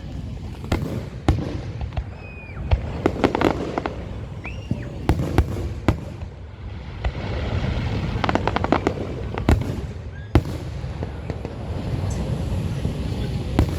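Fireworks going off: a run of sharp bangs and pops, with quick crackling clusters about three seconds in and again about eight seconds in, over a steady low rumble.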